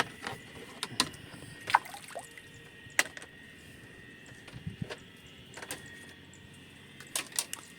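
Irregular sharp clicks and knocks of hands handling things at the water's edge, with a little trickling water.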